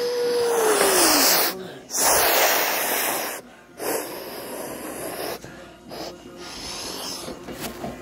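A child imitating a jet airliner with his voice: a held hum that slides down in pitch about a second in, then loud breathy whooshing blasts that soften into quieter whooshing with short breaks.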